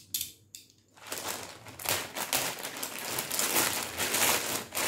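Plastic courier mailer bag crinkling and rustling as it is handled and torn open by hand. A couple of faint clicks come in the first second before the crinkling starts and runs on.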